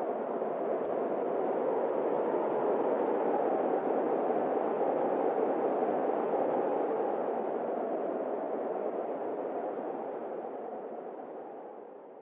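A steady rushing noise with no tone or pitch, used as a sound effect; it swells slightly and then fades away near the end.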